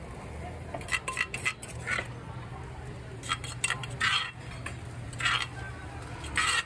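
Metal spoon scraping and clinking against a clay mortar while green papaya salad is mixed. It comes as a series of short scrapes about a second apart, a few of them drawn out to about half a second.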